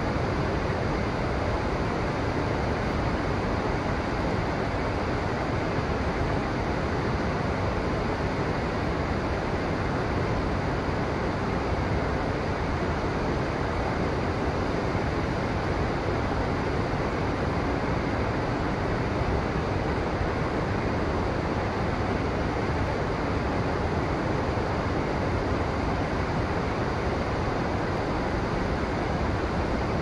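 River water rushing steadily, an even unbroken hiss that neither rises nor falls.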